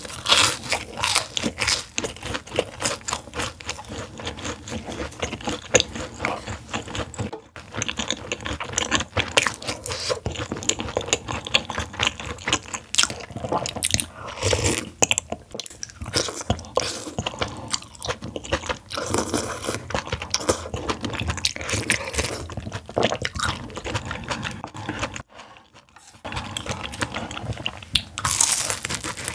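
Close-up eating sounds: repeated crunching and chewing. A spoonful of spicy noodle soup is eaten about halfway through, and there is a crunchy bite into sauce-glazed crispy fried chicken near the end. A short quiet pause comes just before that bite.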